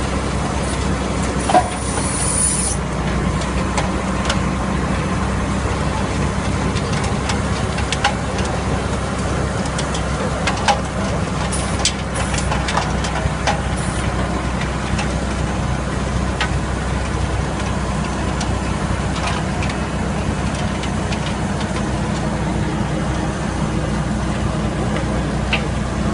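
V12 engine of a wheel trenching machine running steadily under load as the digging wheel cuts earth, with scattered clanks and knocks throughout and a brief hiss about two seconds in.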